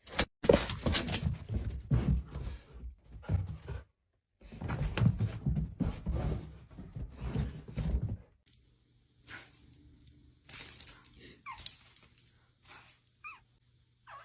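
Knocks and thumps in noisy clatter, then a dog whimpering a few times near the end over a steady low hum.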